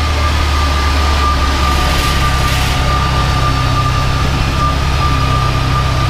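Turbocharged VW AP 1.9 engine idling steadily on a chassis dyno, a low even rumble with a steady high-pitched whine over it.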